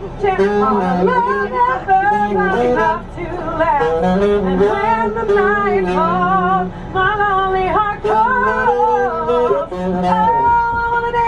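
A woman singing with a wavering, vibrato-laden voice, accompanied by a saxophone playing live, with a note held steady near the end.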